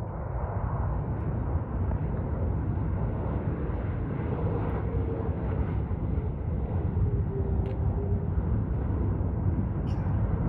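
Boeing 737 airliner's jet engines giving a steady rumble as it lands and rolls out along the runway, with a faint whine that drops in pitch midway.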